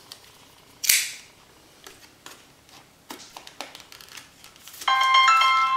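Small plastic package being opened by hand: a sharp crackling snap about a second in, then light clicks and taps of handling. Near the end a chime starts ringing, a second note joining the first and both holding on.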